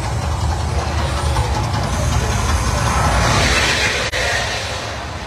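Mirage volcano show erupting: a deep, steady rumble with the roar of gas fireballs, swelling louder about three seconds in.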